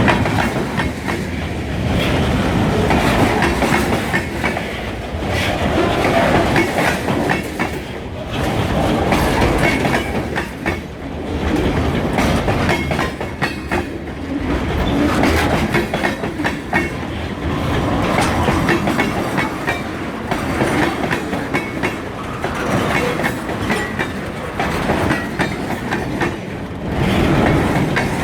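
Freight train cars rolling past close by, wheels clicking and clattering over the rail joints. The sound swells and fades every few seconds as the wheel sets go by.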